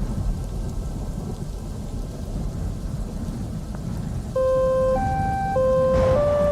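Rain and low rolling thunder, a dense rumbling hiss, used as an interlude in an electronic music track. About four seconds in, a clean synth lead comes in over it, playing a slow melody of held notes about a second each.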